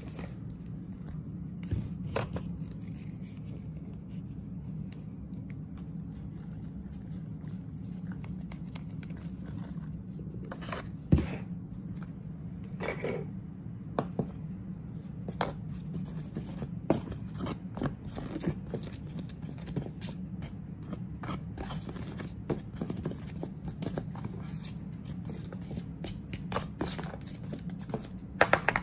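Flour and cornstarch being stirred in a disposable aluminum foil pan: scattered scrapes, crinkles and taps against the foil, over a steady low hum.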